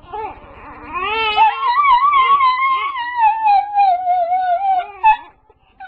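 A dog howling: one long, wavering cry that slowly falls in pitch and breaks off about five seconds in.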